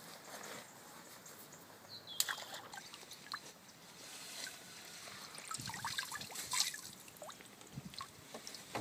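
Water trickling and sloshing with a few small splashes as a small F1 carp is put back into the water of a keepnet. The splashes are loudest about two seconds in and again after the middle.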